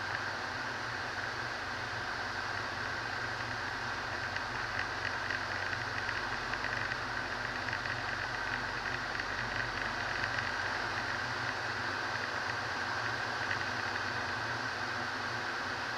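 Robin DR400 light aircraft's piston engine and propeller running steadily in flight, heard inside the cockpit as a constant drone.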